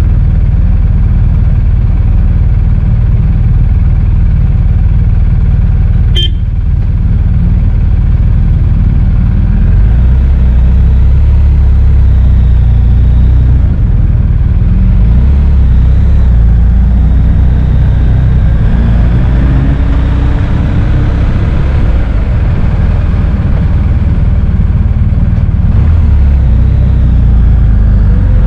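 BMW R1250 GS's boxer twin engine running at low road speed, recorded on the bike, with the engine note rising in pitch a few times in the second half as it picks up speed.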